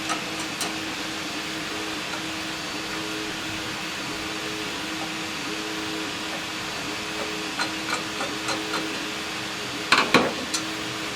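Steady hum with faint scattered clicks, and a short clatter of sharp knocks near the end, as flathead screws are worked loose and parts of an antique cash register are handled.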